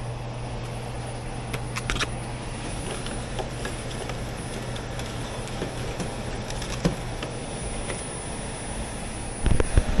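Indoor air-handler unit running, a steady low hum with a rush of air, with a few light clicks and knocks as things in the closet are moved. Near the end comes a short burst of louder knocking as the louvered closet door is handled.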